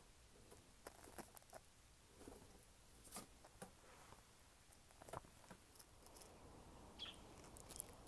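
Near silence broken by faint, scattered light taps and rustles: a white dove flapping its wings and shifting its feet on a shelf.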